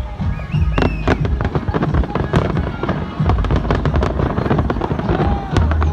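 Large aerial fireworks display: rapid, overlapping bangs and crackles of bursting shells with a deep rumble, over background music.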